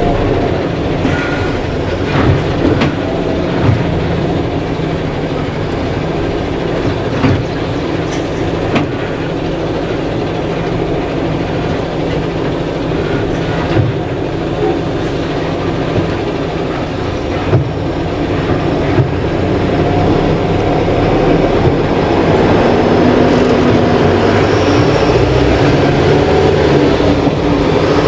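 Eicher Pro 3019 container truck on the move, its 3.8-litre four-cylinder common-rail diesel running under road noise, with scattered knocks and rattles. The sound grows louder about two-thirds of the way through.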